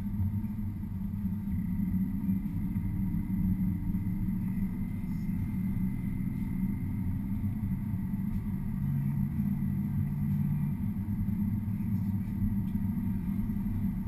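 Car engine and tyres making a steady low rumble, heard from inside the cabin while driving slowly.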